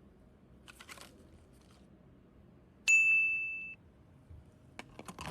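A single bright bell-like ding about three seconds in, ringing on one clear pitch and fading out within a second. Faint rustling comes before it and a few sharp clicks near the end.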